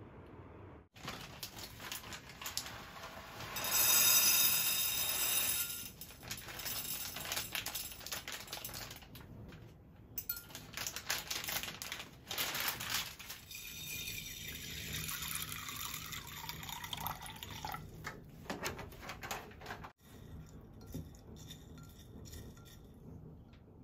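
Water from a kitchen tap running and splashing into a glass container of dried mung beans to soak them, in a few separate takes, with some clatter of beans and glass. Near the end the soaking beans are stirred by hand in the water, more quietly.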